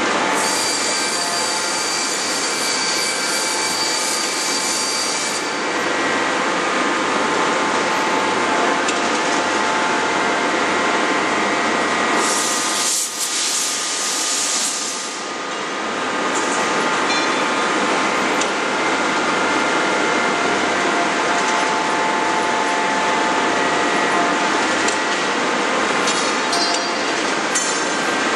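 Steady drone of a hydraulic closed die forging hammer and a forging manipulator running, with a whine of several steady tones. Two spells of loud hissing come through, one in the first five seconds and one around halfway; there are no hammer blows.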